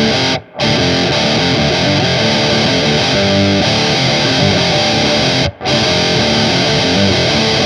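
Distorted electric guitar, an Epiphone 335 Pro with a custom PAF bridge pickup in drop D tuning, playing a heavy riff through a DigiTech Grunge distortion pedal. The riff stops dead twice for a moment, about half a second in and again about five and a half seconds in.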